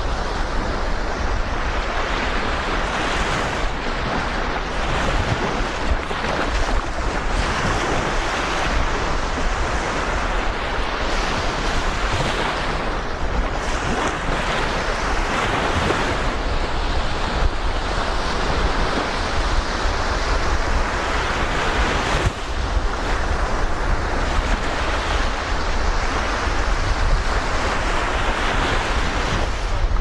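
Sea waves washing onto a beach in a steady rush, with wind buffeting the microphone in a continuous low rumble.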